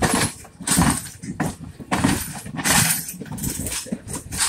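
Passenger railcars rolling past on the track, their wheels clattering and rumbling on the rails in irregular bursts.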